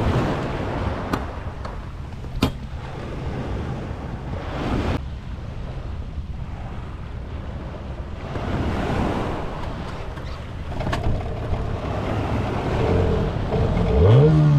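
Wind buffeting the microphone over waves splashing around an inflatable boat, with a few sharp knocks. Near the end the boat's outboard motor starts, and its note rises as it picks up speed.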